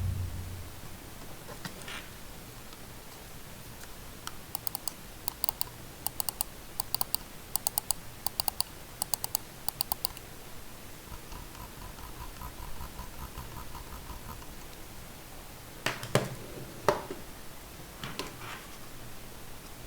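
Computer mouse buttons clicked over and over in quick pairs, then the scroll wheel turned, giving a fast, even run of small ticks for about three seconds, followed by a few heavier knocks near the end.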